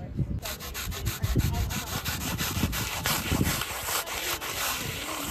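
Street chalk being rubbed over pavement in quick, repeated back-and-forth strokes, colouring in a large area. It starts about half a second in.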